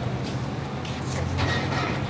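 Basketball game ambience during play: a steady low hum with a few brief, sharp sounds from the court about a second in and again a little later.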